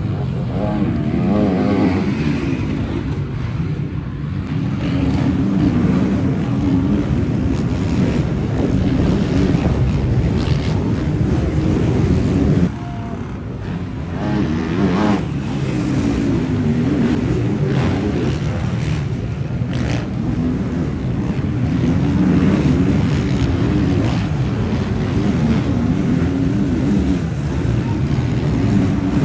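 Motocross bikes racing on a dirt track, their engines revving up and down as they accelerate and shift, one after another.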